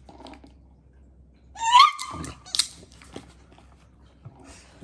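A dog gives one short, high-pitched yip at a wobbling plastic treat-dispenser toy, then the toy knocks sharply as it is nosed and tips, with a few fainter taps after.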